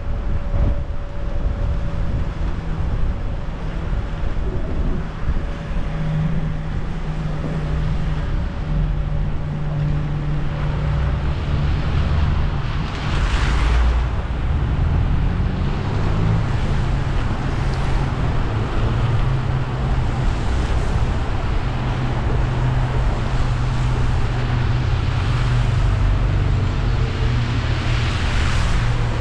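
Car driving on a wet road in the rain: a low engine hum that shifts in pitch now and then, under a steady hiss of tyres on wet tarmac, which swells louder about halfway through and again near the end.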